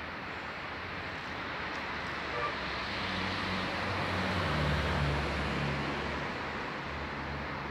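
Steady highway traffic noise. A vehicle's engine rises in level about halfway through and then fades a little as it passes.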